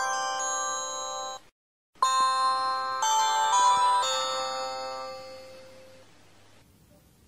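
Two Samsung phone startup/shutdown jingles: a bell-like electronic chime rings and is cut off about a second and a half in, then after a half-second gap a second short chime melody of a few notes plays and fades away over the next few seconds.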